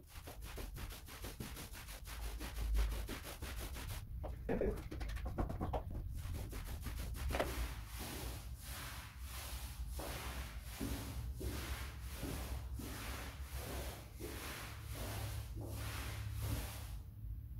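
Paint roller loaded with primer being rolled up and down a wall, a rhythmic rubbing swish of about two strokes a second.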